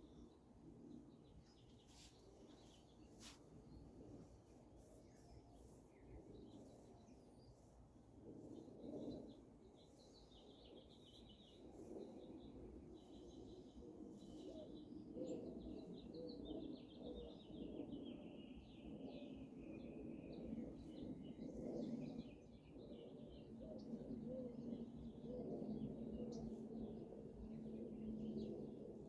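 Faint birds chirping in the background over quiet rubbing sounds of a head massage, with two sharp clicks a couple of seconds in.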